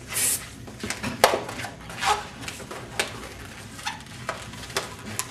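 Long latex modelling balloon being knotted and twisted by hand: short rubber squeaks and rubs, roughly one a second.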